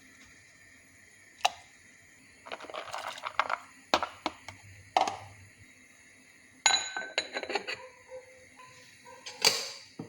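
Kitchenware being handled: an irregular series of sharp clinks and knocks, a few ringing briefly, with the loudest clatter near the end.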